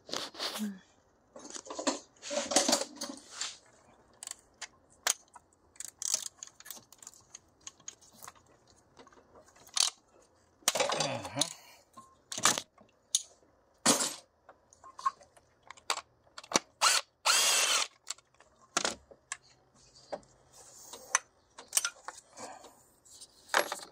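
Socket wrench work undoing two 12 mm bolts on an engine's harness bracket: scattered metal clicks and clinks of tool and bolts, with a few longer rattling spells.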